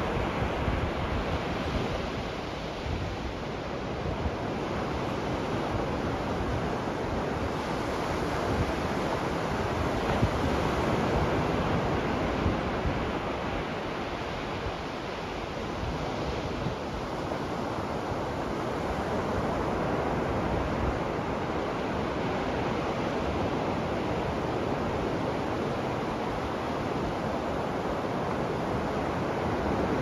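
Ocean waves breaking and washing up on a sandy beach: a continuous rushing surf that slowly swells and eases in loudness.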